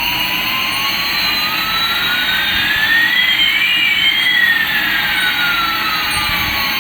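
Toy Airbus A380's jet-engine sound effect: a steady rushing noise with one whine rising in pitch while another falls, the two crossing about halfway through.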